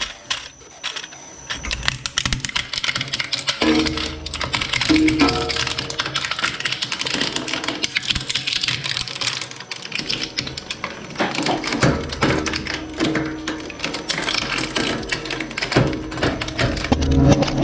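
Shredding machine crunching a plastic toy car: dense, irregular cracking and clicking over background music.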